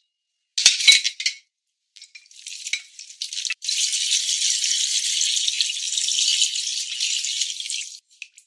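Browned oxtail pieces knocking as they are slid off a board into a clay pot, a few sharp knocks about a second in. Then water is poured from a metal pot onto the hot tomato and onion sauce in the clay pot, with a steady hiss lasting about four seconds.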